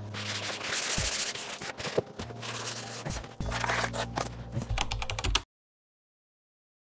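Hand sanding a primed cabinet door with a very fine abrasive pad on a sanding block: scratchy rubbing strokes and small clicks, over a low steady hum that comes and goes. The sound cuts off to silence about five and a half seconds in.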